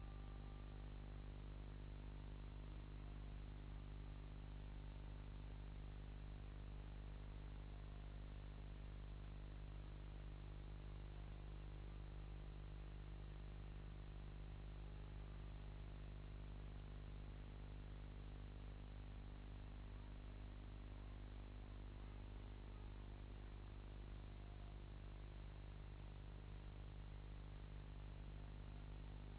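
Steady electrical hum and hiss with a faint high whine, unchanging throughout, with no other sound: the noise floor of a film transfer without a soundtrack.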